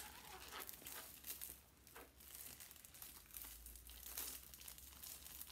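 Faint, irregular crinkling of a thin plastic wrapper as it is handled and pulled open by hand.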